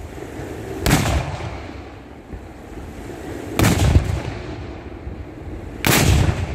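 Three blank black-powder salute shots (Böller), fired one after another about two and a half seconds apart. Each is a sharp blast followed by a rolling echo.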